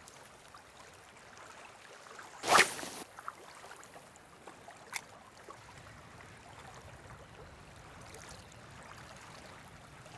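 Shallow sea water running and lapping in a strong current around a wading angler, faint and steady. About two and a half seconds in there is one short, louder rush of noise, and near five seconds a single sharp click.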